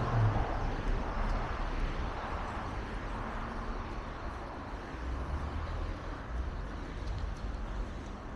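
City street traffic: cars driving past, one passing close around the start, over a steady low rumble that slowly eases off.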